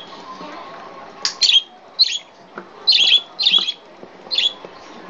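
A yellow budgerigar giving a string of short, harsh squawking chirps, about one a second.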